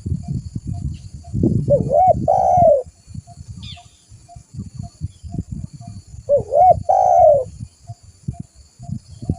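Spotted dove (tekukur) cooing twice, each phrase two short notes and then a longer falling coo, over a low bumpy rumble.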